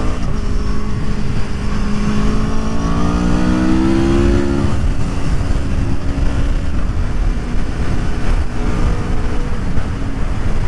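2021 Aprilia Tuono V4 Factory's 1077cc 65-degree V4 engine pulling hard, its pitch rising steadily for a few seconds and then dropping abruptly about five seconds in, after which it runs on at a steadier pitch. Heavy wind rush lies under the engine throughout.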